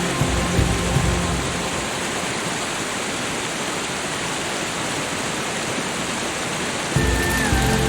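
Steady hiss of falling water, like rain or a waterfall. Soft ambient music fades out in the first second or so and comes back near the end.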